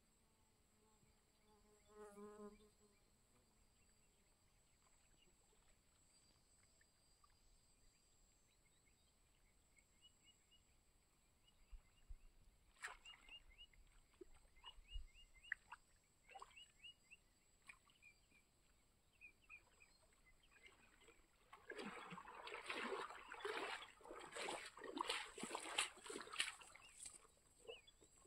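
Water splashing and dripping from a wet cast net and from wading through shallow water, in a busy stretch near the end, the loudest thing heard. Before that, a faint quiet outdoor background with one short wavering animal call about two seconds in and scattered bird chirps in the middle.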